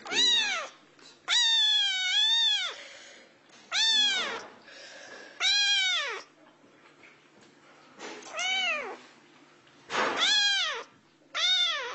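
Grey kitten meowing repeatedly in a high voice: about seven meows, each rising and then falling in pitch, one every second and a half or so, with a longer two-part meow about a second in.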